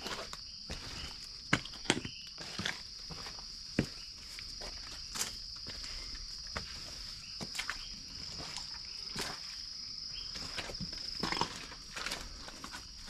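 Footsteps on a muddy, overgrown jungle trail: irregular steps, knocks and rustles of brushing through vegetation, over a steady high-pitched insect drone.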